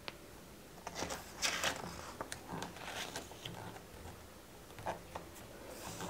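Soft papery rustling as a picture book's page is turned and smoothed by hand, a few faint brushes in a row, then a small tick.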